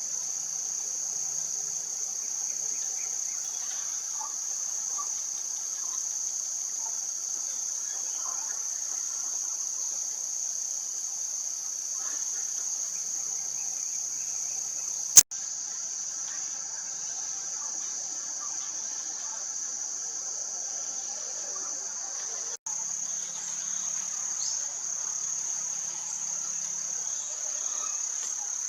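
Steady high-pitched chorus of insects, an unbroken drone, with one sharp click about halfway through.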